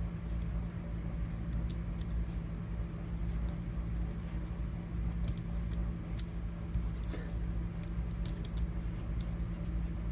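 Scattered small clicks and ticks of a hand screwdriver turning and snugging small screws into a plastic tool cover, more of them in the second half, over a steady low hum.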